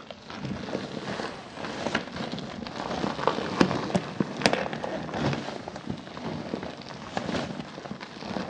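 A sand-filled rubber balloon squishy being squeezed and kneaded by hand. The rubber rubs and the packed sand inside crackles with many small irregular clicks.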